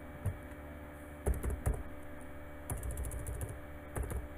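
Computer keyboard being typed on: a few single keystrokes, then a quick run of several a little past halfway, as a new angle value is entered. A faint steady hum lies underneath.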